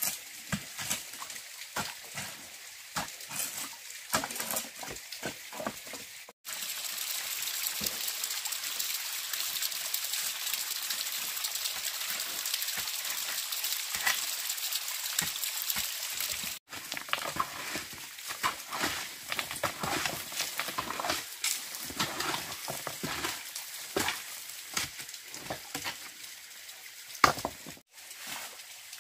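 Hands scraping and scooping wet sand and stones in a shallow muddy streambed, with irregular scrapes, knocks and small splashes. For about ten seconds in the middle this gives way to a steady hiss of trickling water. Then the scraping and knocking resume, with one sharp knock near the end.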